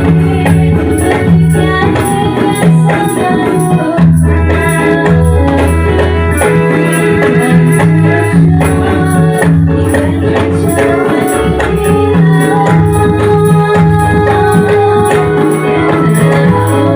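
Instrumental Ndolalak dance accompaniment: tambourine-style frame drums with jingles keeping a steady beat over held bass and keyboard notes.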